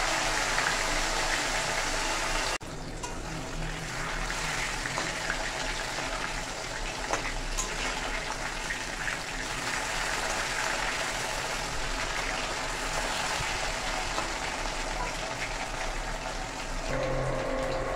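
Fish frying in hot oil in a kadai, a steady sizzle, over the steady rush of a kitchen cooking fan, with a few light scrapes of the spatula as the pieces are turned. The level drops suddenly about two and a half seconds in.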